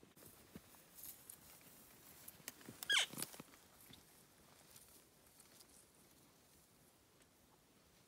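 Faint footfalls and small clicks; about three seconds in, a single short call sweeps steeply down in pitch.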